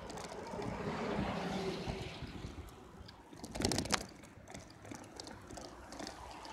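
Riding noise from a bicycle with a camera aboard: a box truck passes with a low engine hum over a rushing haze in the first two seconds. About three and a half seconds in comes a short, loud clatter of knocks as the bike jolts off the road into a parking lot.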